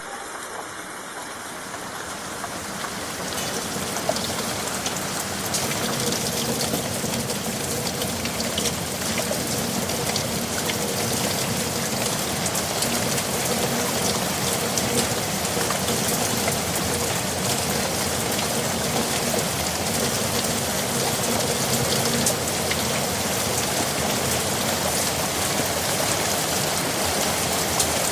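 Steady rain falling, with the patter of individual drops hitting a surface. It fades in over the first few seconds, then holds even.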